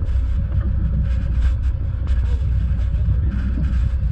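A motorboat under way: a steady low engine rumble with wind noise on the microphone.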